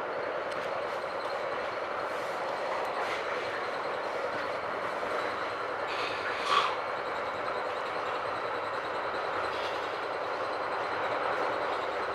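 Metra Rock Island Line commuter train running, heard from inside the passenger car: a steady rumble of wheels on rail, with one brief sharp noise about six and a half seconds in.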